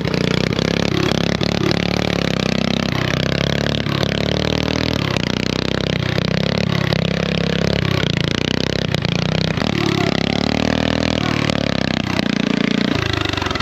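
A motor engine running hard under shifting load, its pitch rising and falling, with scattered clattering and scraping knocks.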